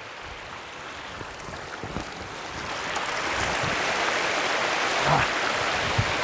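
Snowmelt mountain stream rushing over rocks, a steady watery hiss that grows louder about halfway through, with a few soft low thumps near the end.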